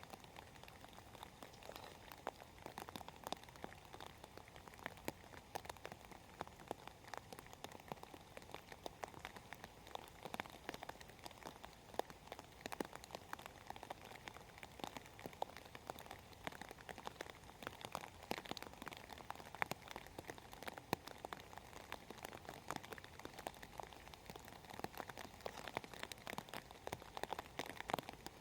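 Rain falling steadily, with many irregular drops tapping on a surface.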